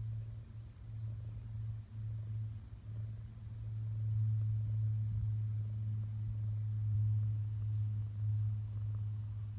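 Brown tabby cat purring steadily as it is stroked, a low continuous rumble that dips briefly a few times early on and grows louder from about four seconds in; the cat is content.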